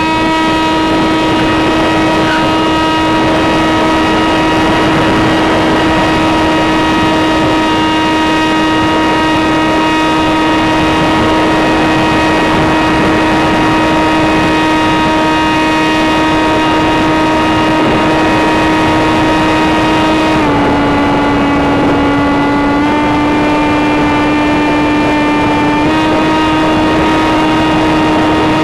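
Sky Surfer RC plane's electric motor and propeller running with a steady high whine over a rushing wind noise. About two-thirds of the way through the pitch drops slightly, then steps back up in two stages as the throttle changes.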